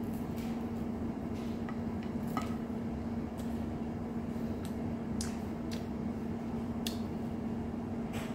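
Eating by hand: scattered soft clicks and smacks of chewing and of fingers pulling cooked steak apart. Under them runs a steady low hum.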